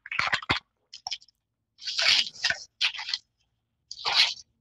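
Thin plastic drink bottle crinkling and crackling in a handful of short bursts as it is gripped and tipped up to drink.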